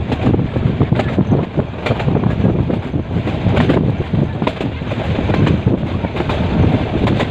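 Metre-gauge passenger train running, the carriage rattling and clattering with irregular sharp knocks, wind buffeting the microphone.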